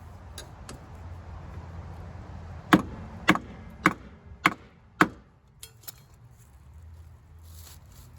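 Five hammer blows on metal, about half a second apart, each with a short ring, tapping a part of a golf cart's rear hub assembly on: it is almost seated.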